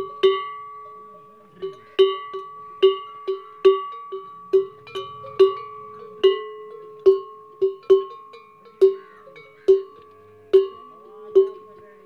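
Hand-shaken camel bell, a tall metal bell with a long clapper, struck about twice a second at an uneven rhythm; each strike rings on with a clear, sustained tone. The bell has just been repaired.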